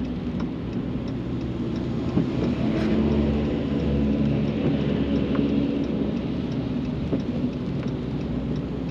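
Steady road noise inside a pickup cab on a wet highway: low engine hum and tyre hiss on wet pavement, swelling a little in the middle.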